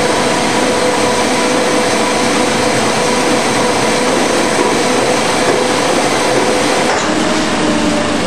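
KBA Rapida four-colour B2 sheetfed offset press running: a loud, continuous mechanical clatter with a steady hum. Near the end the hum shifts to a lower pitch.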